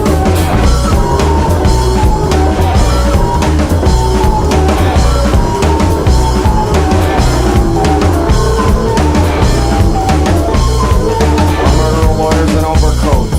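Instrumental band music without singing: a drum kit playing kick drum and rimshots over a loud, deep bass line, with short higher melodic notes above.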